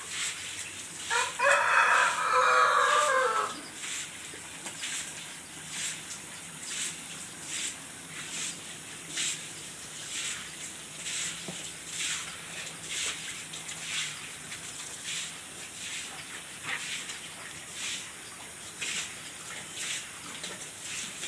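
A rooster crows once, loud and drawn out, about a second in. After it comes the repeated scratchy swish of a stiff brush scrubbing a wet ribbed rubber stall mat, with water running from a hose, about one stroke a second.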